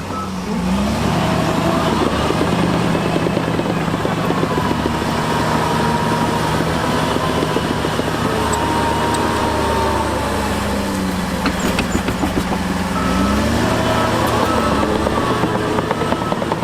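Heavy diesel earthmoving machinery running hard, its engine note dipping and then climbing again about two-thirds of the way through. Near the end, a reversing alarm beeps in a steady series.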